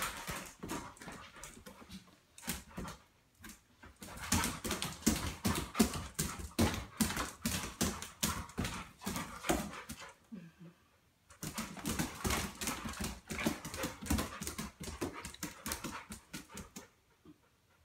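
A dog's claws clicking and scrabbling rapidly on a hard tile floor as it turns about unsteadily, in two long spells with a pause of about a second between them.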